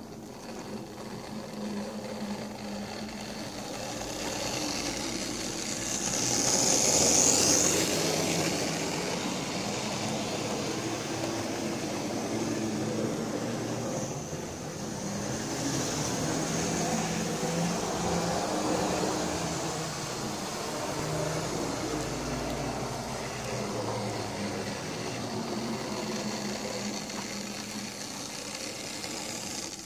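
Lima OO-gauge model Class 26 diesel locomotive running along model railway track: a steady electric motor whir with the wheels rattling on the rails, louder for a moment about seven seconds in.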